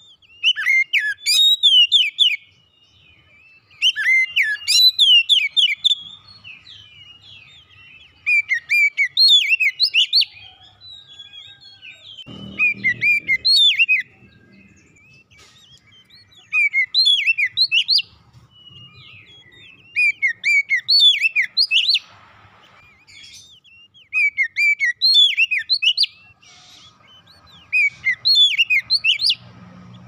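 Oriental magpie-robin (kacer) singing: repeated phrases of quick, clear whistled notes sweeping up and down, each phrase about two seconds long with pauses of about two seconds between, eight phrases in all.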